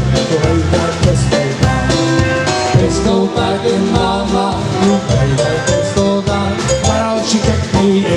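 Live polka band playing an instrumental passage, with a bouncing bass line and a steady drum beat under the melody instruments.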